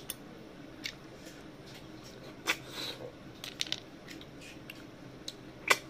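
Close-up eating sounds from a meal of river snails in their shells with rice, eaten by hand: a handful of short, sharp clicks and smacks spaced out over the quiet, the loudest near the end.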